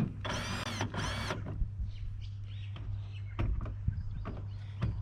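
Cordless drill run in two short bursts about a second in, each about half a second long, its whine rising then falling in pitch, with a few light knocks around them over a steady low hum.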